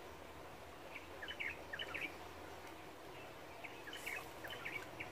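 Faint outdoor background noise with a bird chirping in short clusters of quick, high notes, several times over a few seconds.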